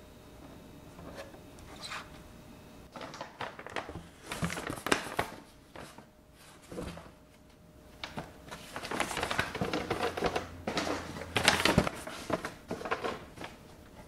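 Brown paper bags rustling and crinkling as they are handled and pressed into a plastic fridge storage bin, in irregular bursts with a few light knocks, loudest near the end.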